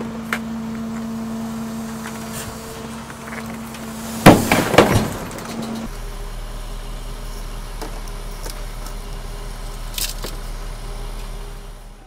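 Garbage truck's hydraulic packer blade running through its compacting cycle: a steady machine hum, then a loud burst of cracking and crunching about four seconds in as the blade crushes the load, with glass breaking among it. About six seconds in the hum changes to a lower, steady drone.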